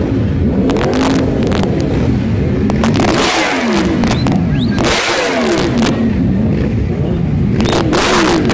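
Yamaha YZF-R1's crossplane inline-four revved again and again, the engine pitch climbing and falling back about once a second, with a few sharp bangs among the revs.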